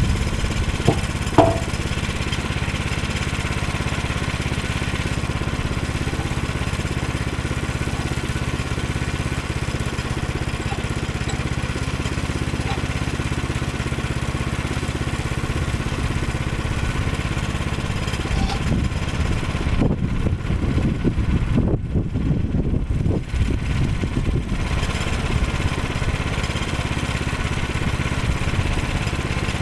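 Small gasoline engine of a Woodland Mills 122 portable bandsaw sawmill running steadily. There are two sharp knocks about a second in, and the sound turns rougher and uneven for a few seconds past the middle.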